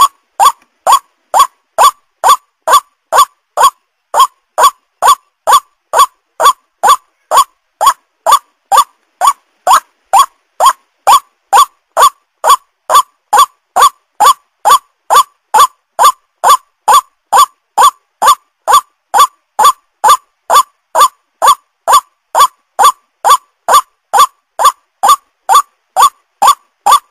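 White-breasted waterhen (ruak-ruak) calling over and over: a short, harsh note rising in pitch, repeated about two and a half times a second with brief pauses now and then. It is a bird-trapping lure call meant to draw waterhens in.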